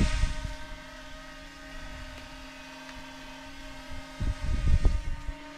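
A steady mechanical hum made of several level tones, with a few low dull thumps on the microphone about four to five seconds in.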